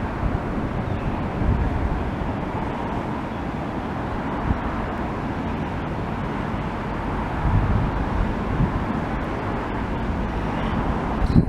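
Ocean surf washing and breaking on the shore, a steady loud rush with low, gusty wind rumble on the microphone.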